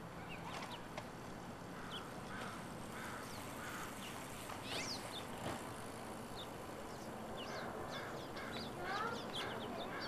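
Songbirds chirping and calling, short high notes and quick sweeps scattered throughout. A lower call repeats about twice a second between about one and a half and four seconds in.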